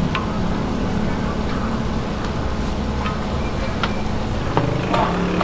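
Patongko dough deep-frying in a wok of hot oil, a faint sizzle under a steady low rumble, with a few light clicks.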